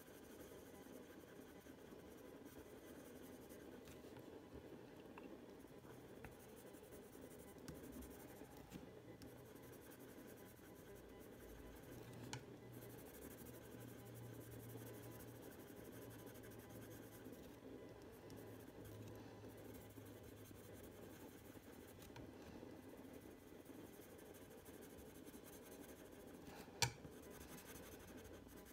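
Faint, steady scratching of a Prismacolor coloured pencil being worked over paper, laying down layers of colour. A single sharp tap comes near the end.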